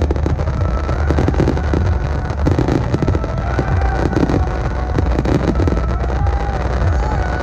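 Starmine fireworks barrage: a rapid, continuous run of shell bursts and crackling, with a song's music faintly underneath.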